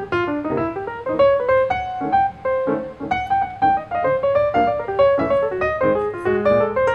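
Background music: a light piano tune of quick notes played in a steady run.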